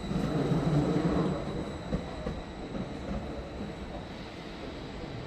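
Regional express train rolling out through curves and points, its rumble fading after about a second and a half. A thin, steady, high wheel squeal runs under it, and wheels click sharply over a rail joint about two seconds in.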